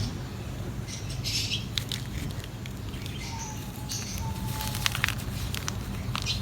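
Dry mud crumbling and breaking apart on a sheet: irregular crackles and sharp little snaps over a steady low hum.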